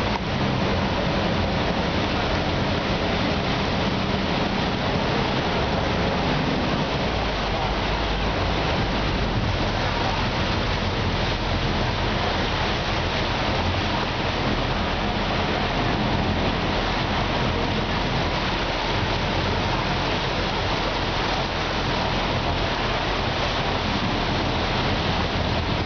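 Floodwater rushing and splashing steadily as a bus drives through it, with the low hum of the bus engine underneath.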